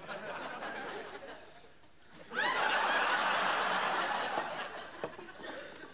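Audience laughter: low laughter at first, then a loud burst of laughter about two seconds in that dies down near the end.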